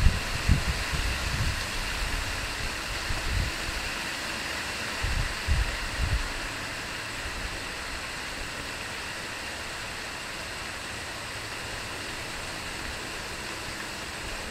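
Steady outdoor hiss with several low thumps and rumbles from a handheld camera being moved, bunched in the first six seconds, after which only the steady hiss remains.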